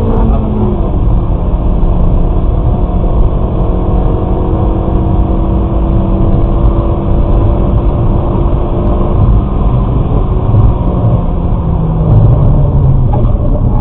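Kia Forte Koup's 1.6 GDI four-cylinder engine pulling hard under full acceleration in a high gear, heard from inside the cabin over heavy road and wind noise. The engine note drops about half a second in as the manual gearbox shifts up, then climbs slowly as the car gains speed.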